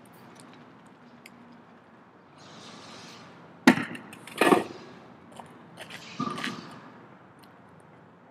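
Steel beer kegs clanking on concrete as they are set down and handled during keg carries. Two loud metal clanks, a little under a second apart, come a little past the middle, followed by lighter knocks with a short ring.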